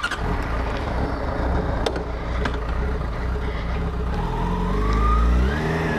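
Yamaha FZ6 N's 600cc four-cylinder engine running, then revving up from about four seconds in as the bike pulls away, with the pitch rising and dropping again near the end at a gear change.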